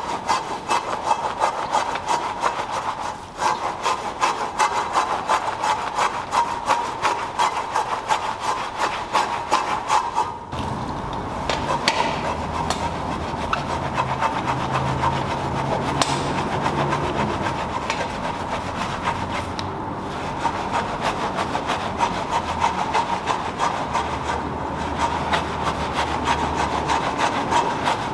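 A foam-soaked wheel brush scrubbing a foam-covered alloy wheel, a rapid, steady rasping rub of bristles over the spokes and inside the wheel barrel.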